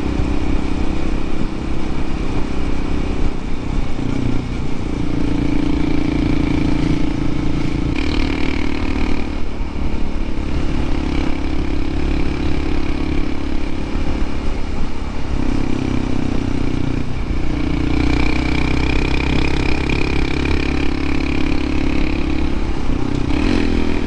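Honda CT125 Hunter Cub's single-cylinder four-stroke engine pulling under load on a steep mountain climb, with wind and road noise. Its pitch shifts several times as the throttle or gear changes.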